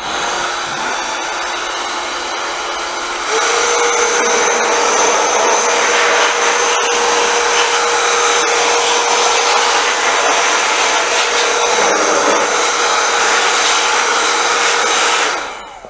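Small electric vacuum cleaner running steadily as it draws dust out of an opened laptop. It has a steady rushing whine. About three seconds in it gets louder and its whine steps up in pitch, then it winds down near the end.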